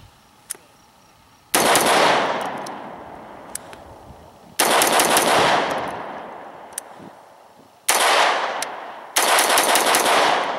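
AR-15 carbine fitted with a Battlecomp 1-inch muzzle brake/compensator firing four quick strings of rapid semi-automatic shots, each string trailing off over a couple of seconds.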